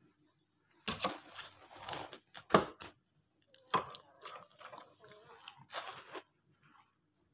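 Close rustling and crunching in several bursts over about five seconds, with a few sharper knocks, as a Labrador shifts its body on the bedding.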